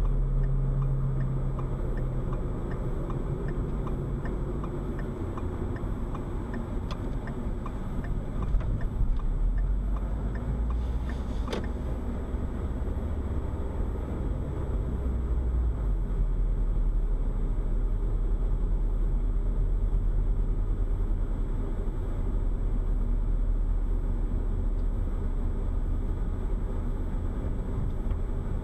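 Car driving, heard from inside the cabin: a steady low rumble of engine and road noise. A faint, evenly spaced ticking runs for the first several seconds, and there is a single sharp click about eleven seconds in.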